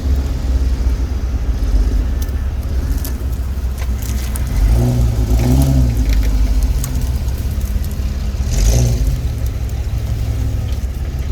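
Jeep's engine running under load while off-roading, revving up twice, about four and a half seconds in and again near nine seconds, with scattered light clicks and rattles over the rumble.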